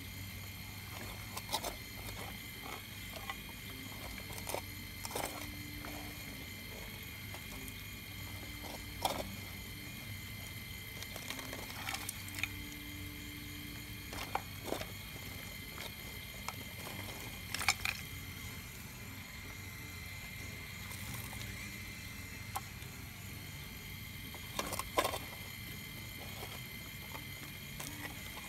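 Pieces of shale clicking and knocking as the bucket of a radio-controlled model Cat 349 excavator digs and scrapes through them, about half a dozen sharp knocks spread out, over a steady high-pitched hum.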